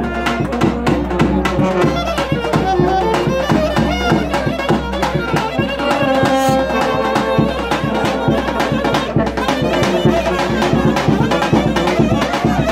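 A live Serbian brass band (trubači) playing a folk tune: saxophone leading over brass horns, with a bass drum keeping a steady beat.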